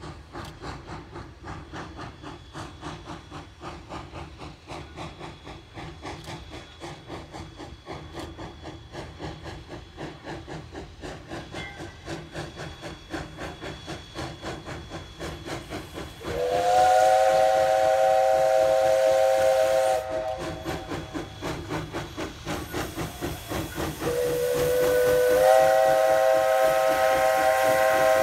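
Jeddo Coal No. 85, a small 0-4-0T steam tank locomotive, working under steam with a steady beat of exhaust chuffs. About halfway through its chime whistle sounds one long blast of a few seconds, then a second long blast that rises slightly in pitch and runs on to the end.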